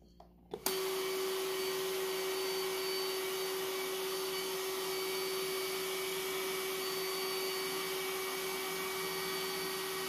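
Roomba Clean Base self-emptying dock running: its suction motor pulls the dirt out of the docked robot's bin. It starts abruptly about half a second in and then runs steadily with a constant hum.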